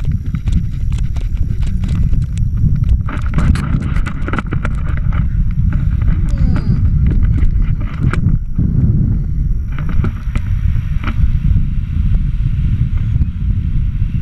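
Wind buffeting the camera microphone on a tandem paraglider at takeoff and early flight, a loud, steady low rush. Scattered knocks and clatter come mostly in the first half.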